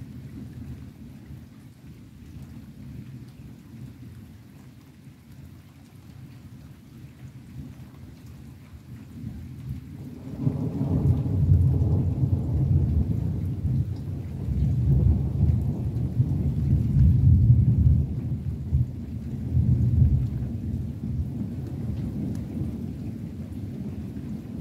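A long roll of thunder starts about ten seconds in, a low rumble that swells in waves and eases off near the end. Before it comes a quieter low steady rumble with rain falling.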